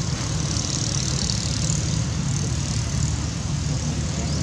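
Steady outdoor background noise: a constant low rumble with a continuous high hiss above it, no distinct events.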